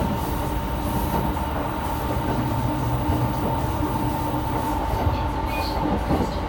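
Running noise of a JR E217 series electric train heard from inside the passenger car: a steady rumble of wheels on rail with a constant hum.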